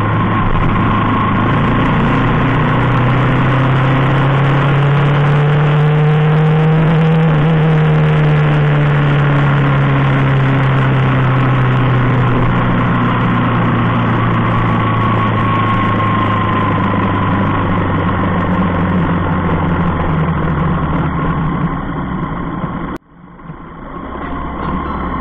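Engine of a moving road vehicle heard from on board, a steady hum whose pitch slowly rises and falls with speed. Near the end it drops out abruptly for a moment, then builds back up.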